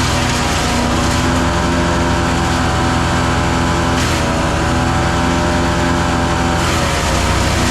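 Gas engine of a 7-inch wood chipper running steadily at high speed, its pitch dipping briefly about four seconds in and again near the end.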